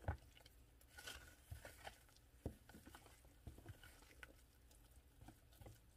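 Thick batter being stirred in a plastic bowl: faint, irregular soft taps and squelches.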